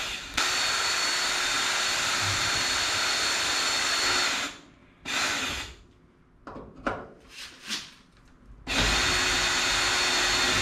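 A drill running at steady speed for about four seconds and stopping, a few small clicks and knocks, then the drill running again near the end, drilling into the aluminium fuselage structure.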